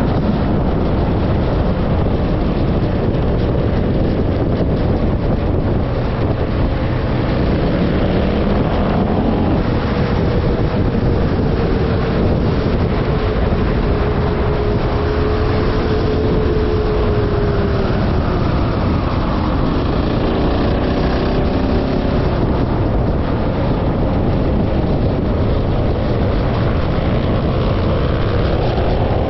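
A vehicle engine running under way, its pitch drifting up and down, mixed with heavy wind noise on the microphone.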